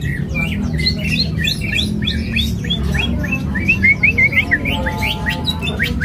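Cucak ijo (green leafbird) singing in full voice: a fast, unbroken run of short sweeping chirps and whistles, over a steady low background din.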